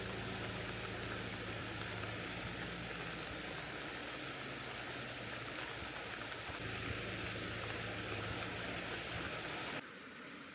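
Steady rain falling, an even hiss with a faint low hum underneath. Near the end it cuts suddenly to a quieter, duller sound.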